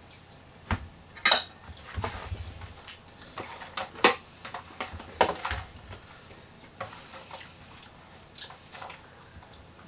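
Tableware being handled at a table: a string of separate clinks, knocks and clicks from plates, cutlery and a clear plastic food container being packed and closed.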